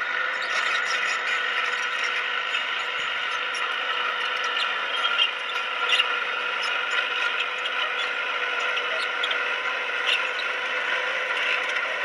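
Komatsu bulldozer working: a steady mechanical whine with scattered squeaks and clicks over it.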